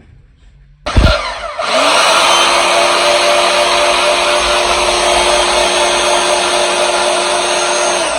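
Bauer 10-amp portable band saw switched on about a second in: the motor speeds up with a rising whine and then runs steadily and loudly with the freshly fitted blade spinning free, not cutting. It is a first test spin after the blade was installed.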